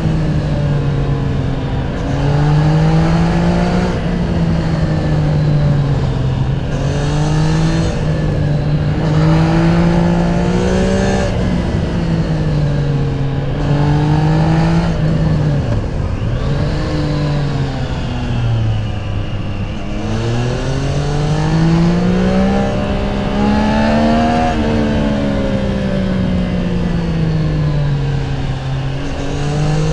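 Triumph Tiger 660 Sport's stock-exhaust inline three-cylinder engine under way, its revs rising and falling every few seconds as it is worked through the gears. About halfway through the revs drop lower for a few seconds before climbing again.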